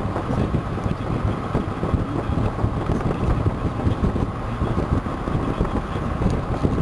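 Steady road and wind noise of a car driving, heard from inside the car.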